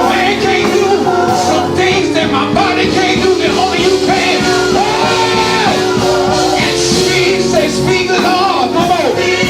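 Live gospel worship music: a band playing over a steady beat, with voices singing long, sliding notes.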